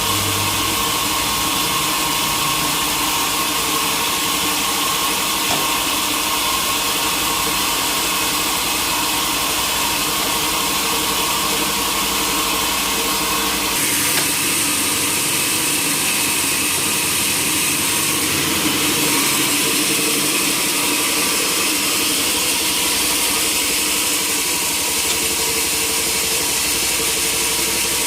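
Sawmill machinery running steadily, a loud engine-like drone with machine noise. About halfway through the low hum drops away and a high hiss comes in for a few seconds.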